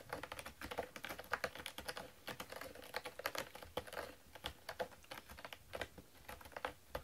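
A cat raking its claws over a corrugated cardboard scratcher, in quick, irregular scratching strokes.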